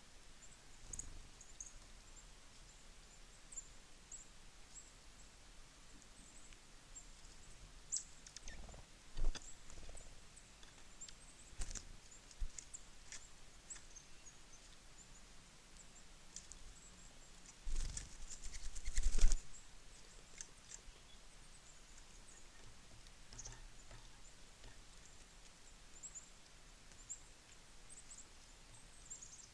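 Small songbirds at a winter feeder chirping, many short high calls scattered throughout. A few sharp knocks, and about two-thirds of the way in a louder burst of thumping and rustling.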